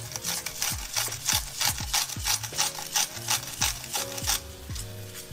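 Salt grinder being twisted over a pot: a quick run of gritty grinding crunches, about three or four a second, stopping a little after four seconds in. Lo-fi hip-hop music with soft chords and a deep bass plays underneath.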